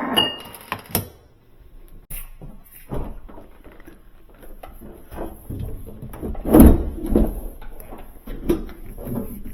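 Scattered knocks, clicks and clanks of hand tools and hardware on a refrigerator door hinge as its bolts are loosened, with one loud thump about two-thirds of the way through.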